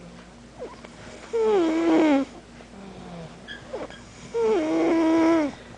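A sleeping child snoring with a wheezy, whistling tone: two long snores about three seconds apart, each dipping in pitch and then holding steady.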